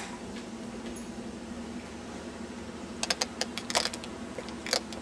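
Light metallic clicks and rattles, a quick cluster about three seconds in and a single short one near the end, over a steady low hum.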